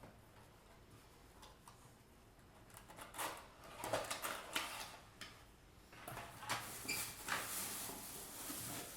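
A cardboard box being opened and its plastic packaging and parts handled: scattered rustles, scrapes and clicks that start about three seconds in.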